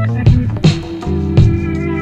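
Upbeat background music with a bass line and drum hits.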